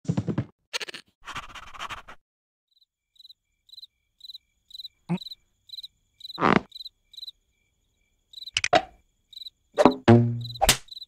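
A cricket chirping steadily, about three short high chirps a second, as night-time ambience in a cartoon. A few short cartoon vocal sounds come over it, the loudest near the end.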